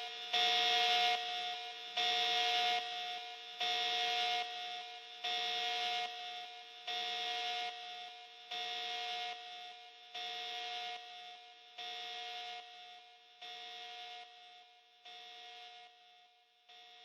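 Electronic glitch alarm sound effect: a harsh buzzing alarm tone sounding in pulses of under a second, repeating about every 1.6 seconds and fading steadily quieter.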